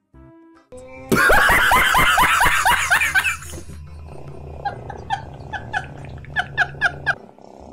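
People laughing hard: a loud fit of rapid, high laughs for about two seconds, then a man's laughter in short repeated bursts, about three a second, over a low hum.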